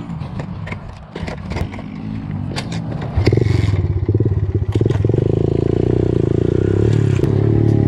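Kawasaki KLX110 pit bike on gravel: scrapes and clatter as the bike is handled and stood up, then about three seconds in its small four-stroke single engine comes in loud under throttle and keeps running steadily as the bike pulls away.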